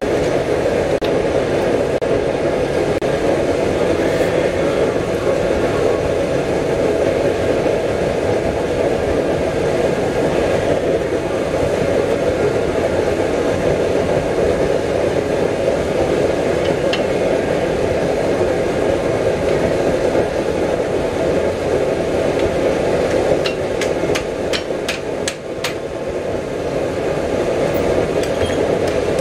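A hand hammer striking hot steel held in tongs on an anvil, a quick run of sharp blows near the end. A steady rushing noise runs underneath.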